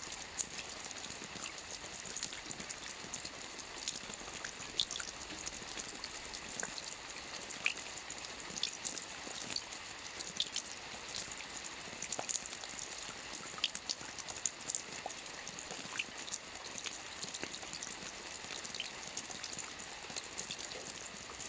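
Steady rain with a constant hiss and many individual drops ticking close by.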